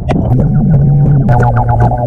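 Music with a steady low droning tone and sharp clicks over it.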